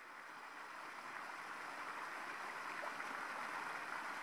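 A steady rushing noise like a stream of running water, fading in gradually over the first couple of seconds and then holding steady.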